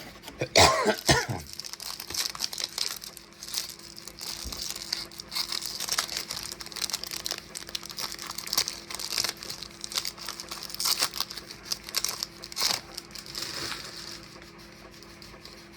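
A trading-card pack's wrapper crinkling and being torn open, with irregular crackles and rustles.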